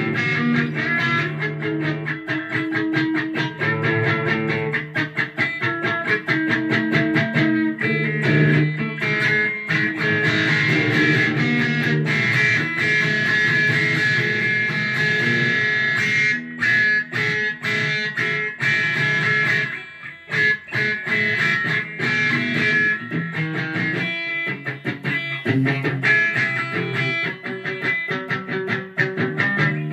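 Sunburst Stratocaster-style electric guitar strummed in a steady rhythm of chords, with a short drop in loudness about twenty seconds in.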